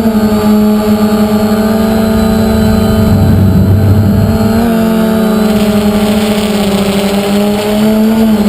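Drone's electric motors and propellers running with a steady buzzing whine. The pitch steps down about five seconds in and back up near the end as the motor speed changes, with a low rumble around three to four seconds in.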